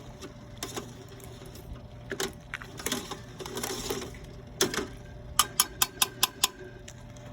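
Light clicks and knocks, then a quick run of about six sharp clicks a little past the middle, over a faint steady hum.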